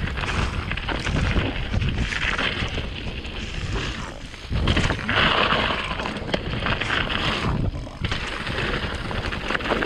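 Mountain bike rolling over a rough trail of dirt, rocks and dry leaves: tyre crunch and frequent rattling knocks from the bike, with wind buffeting the microphone.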